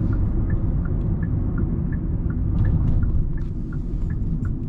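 Steady road and drivetrain rumble inside a 2020 Hyundai Sonata's cabin, with the turn-signal indicator clicking a regular tick-tock, about three clicks a second.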